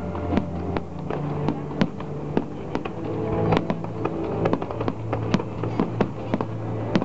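Aerial firework shells bursting in quick, irregular succession, with sharp bangs about three times a second, over steady sustained music.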